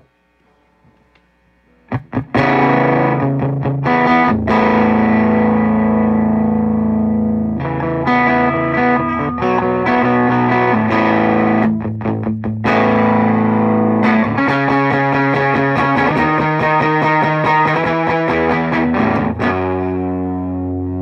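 Electric guitar through a modded Ibanez TSA15 tube amp with its volume cranked and its boost and Tube Screamer switched off, the 6V6 power tubes pushed into overdriven distortion. After a couple of clicks, chords start about two seconds in and are played with brief stops, ending on a chord left ringing out.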